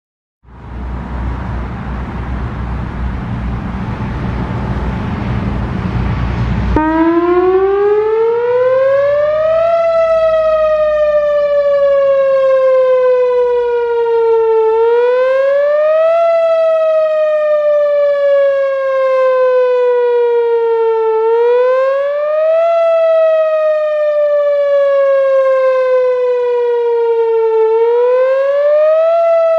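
Whelen Vortex electronic outdoor warning siren sounding a wail test. After several seconds of steady rushing noise, a buzzy siren tone starts abruptly about seven seconds in. It rises quickly, then falls slowly and rises again, repeating about every six and a half seconds.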